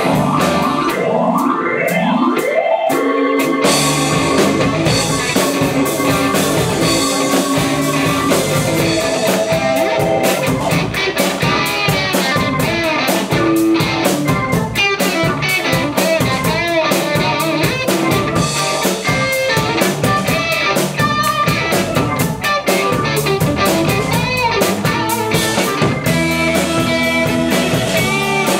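Live blues-rock band playing an instrumental passage: electric guitar over bass and drum kit. For about the first three seconds the guitar plays alone in rising runs, then the drums and bass come back in and the full band plays on.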